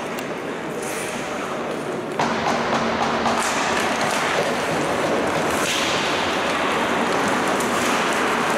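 Ice hockey in play: skates scraping on the ice, with sticks and puck clacking in short sharp strikes. The noise steps up louder about two seconds in.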